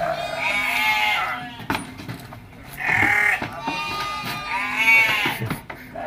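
A sheep bleating loudly several times, long wavering calls, as it is manhandled up onto a cargo bed, with a few sharp knocks between the bleats.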